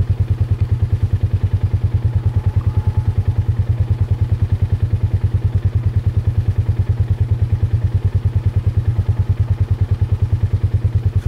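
Vehicle engine running with a loud, steady low throb that pulses rapidly and evenly, unchanged throughout.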